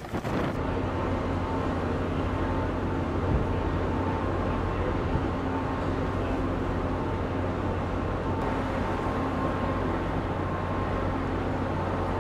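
Steady engine drone with a low hum and a few held tones under it, following wind buffeting the microphone that stops about half a second in.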